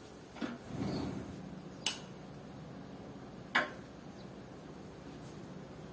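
Window being opened by hand: a short low rubbing slide about a second in, then two sharp clicks of the frame and fittings, about a second and a half apart.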